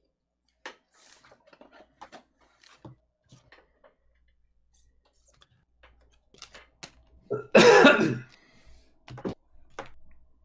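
A person coughs once, loudly, about three-quarters of the way through. Before and after it, soft clicks and rustles of trading cards and packs being handled.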